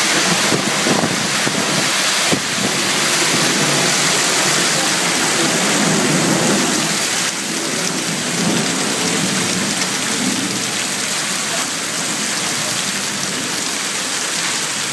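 Steady rain falling as a dense, even hiss, dropping a little in level about seven seconds in.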